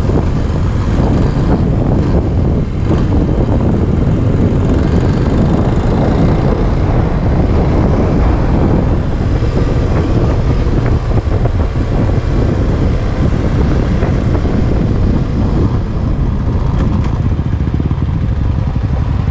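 Dirt bike's engine running steadily while under way, heard from on board the riding motorcycle, with the rumble of the ride underneath.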